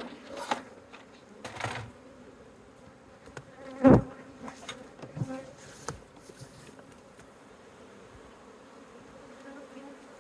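Swarm of honeybees buzzing in a steady hum, with several knocks and bumps in the first six seconds, the loudest about four seconds in.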